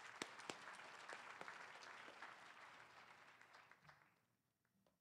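Audience applauding, with a few distinct sharp claps near the start. The applause dies away about four seconds in.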